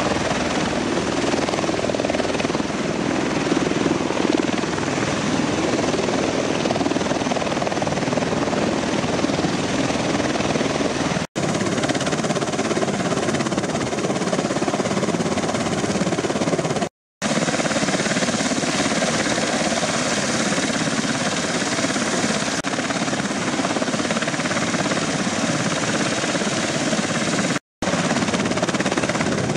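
Bell Boeing V-22 Osprey tiltrotor's twin turboshaft engines and proprotors running with a loud, steady roar, first as it hovers low to land and then as it stands on the pad with rotors turning. The sound breaks off for a split second three times.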